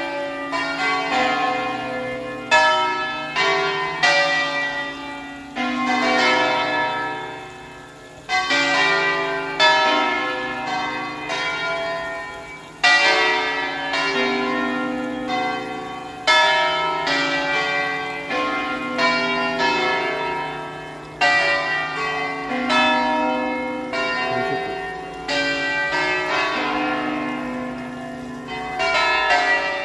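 Church bells ringing in the stone bell tower: several bells of different pitch strike in an uneven sequence, each stroke ringing on and fading before the next.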